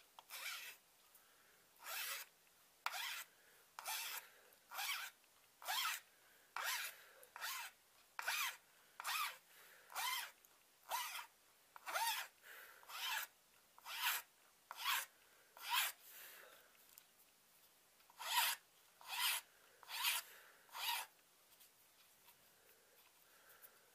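Flat hand file rasping across the edge of a metal knife bolster in even push strokes, about one a second, with a short pause about two-thirds of the way through. The maker is filing a radius onto the bolster's bottom edge with a file he calls pretty crappy.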